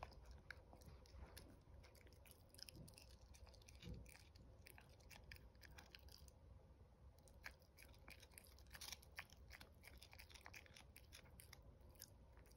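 A 19-week-old chihuahua puppy gnawing at a chew stick held out in a hand: faint, irregular chewing clicks and small crunches, with some licking.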